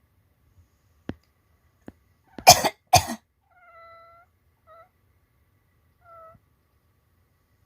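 A person gives two quick, deliberate fake coughs, and a calico cat answers with meows: one longer meow right after the coughs, then two short ones.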